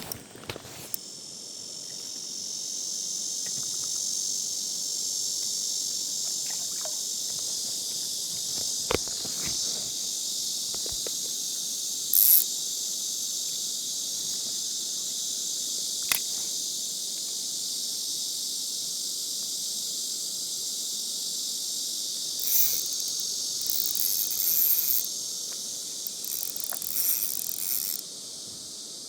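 A high, steady chorus of summer insects, building up over the first few seconds and then holding. A few short clicks and scrapes come through, most of them in the last third.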